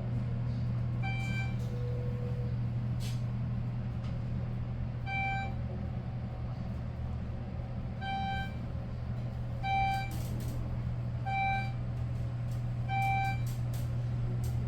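Elevator car in motion with a steady low hum. A short electronic beep sounds about seven times, coming every second and a half or so in the second half.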